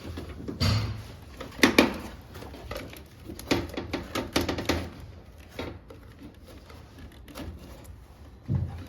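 Irregular knocks and clatter of air-conditioner parts being handled and taken apart, with the loudest pair of knocks a little under two seconds in.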